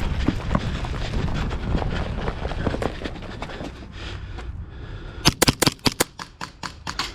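Airsoft gunfire: a rapid string of sharp shots, about seven a second, starting about five seconds in, over a rumbling, crackly handling noise.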